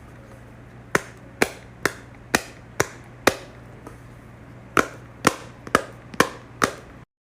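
A fidget toy's bubbles being pressed one after another: sharp clicky pops, about two a second, with a short pause midway and an abrupt stop near the end.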